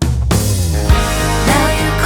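Background music: a new song with guitar and a steady beat starts abruptly right after a fade-out.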